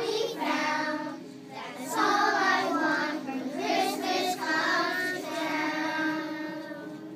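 A group of young children singing a song together, their voices fading as the singing trails off near the end.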